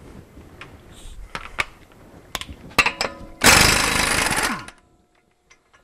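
Impact wrench hammering a front axle nut loose in one burst of about a second, a little after halfway. Before it come a few sharp clicks and knocks of the socket going onto the nut.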